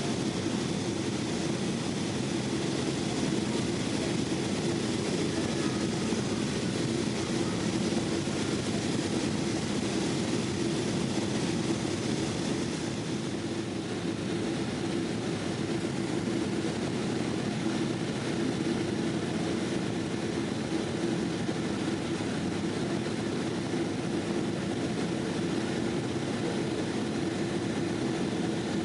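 Steady cabin noise inside a Boeing 777-200ER airliner: an even rush of jet engines and airflow with a steady hum underneath, and no change in engine setting.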